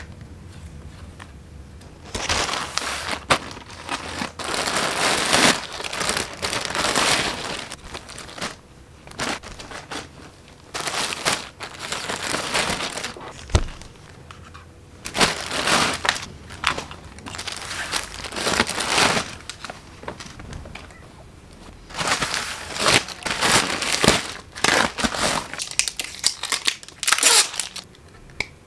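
Plastic packaging crinkling and crumpling as parcels are unwrapped by hand, in irregular bursts a few seconds long with short pauses between.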